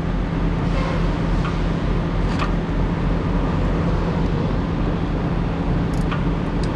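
Steady low mechanical drone with a constant hum, and a few light metallic clicks as the trailer brake's slack adjuster and pushrod clevis are lined up by hand.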